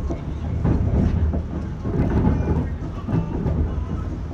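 Z50000 Francilien electric multiple unit running, heard from inside the passenger car: a steady low rumble of the wheels on the rails with scattered clacks over the track.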